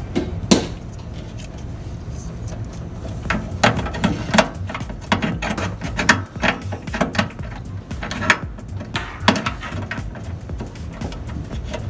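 Irregular small clicks and knocks of hands handling a microwave door interlock switch and its wiring, pulling and pushing the spade connectors, over a steady low hum.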